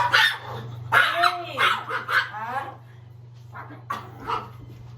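A dog giving several short barks and whines, over a steady low hum.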